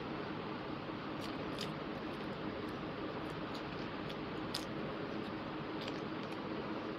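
Close-miked eating by hand: chewing and small wet clicks as rice and chicken curry are torn and mixed with the fingers, over a steady background hiss with a faint hum.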